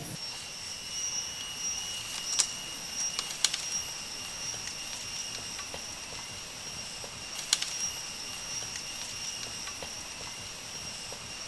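Steady high-pitched droning of forest insects. A few short sharp clicks sound about two and a half, three and a half and seven and a half seconds in.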